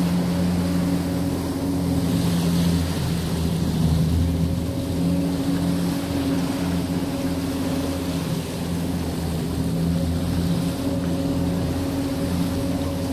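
Boat engine running steadily, a low even hum, with a hiss of water and wind over it.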